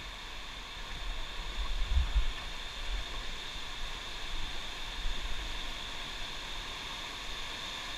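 Steady rushing of whitewater river rapids, with a few low bumps around two seconds in.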